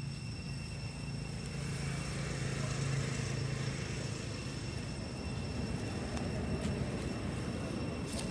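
Low, steady engine hum of a motor vehicle running nearby, swelling about two to four seconds in, over a faint steady high whine.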